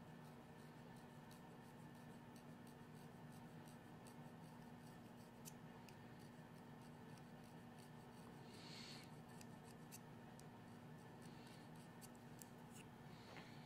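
Faint scraping of a reed knife on the cane of an oboe reed's tip during finishing work: light ticking strokes, with a few short scratchy strokes in the second half, over a steady low hum.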